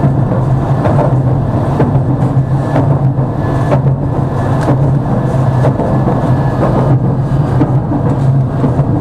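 Tram running along its track, heard from inside the car: a steady low hum from the motors and wheels on the rails, with a few faint clicks.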